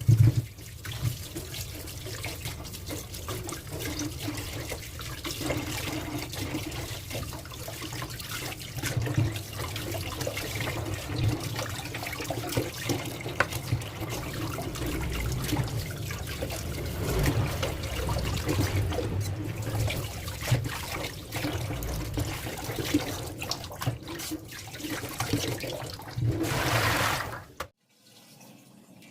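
Water running from a tap into a sink, with scattered short knocks and splashes, shut off abruptly about a second and a half before the end.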